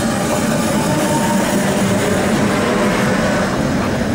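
A coupled pair of Tatra T3 trams passing close by: a steady running noise of wheels on rail and the cars' running gear, with faint held tones over it.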